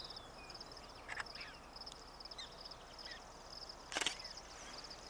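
Faint black-tailed prairie dog barks, a few short sharp chirps, over a steady high insect trill. A sharp click comes about four seconds in.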